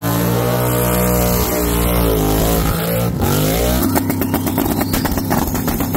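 High-powered race engine revving loudly, its pitch swinging up and down about two to three seconds in. From about four seconds it turns choppy, with rapid even pulses.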